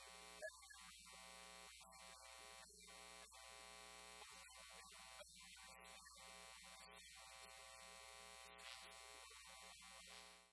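Near silence: a faint, steady electrical hum and buzz.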